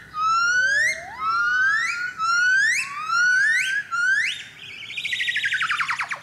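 Golden-cheeked gibbons singing: a series of about seven whoops, each climbing steeply in pitch. About five seconds in, these give way to a fast run of short, falling notes.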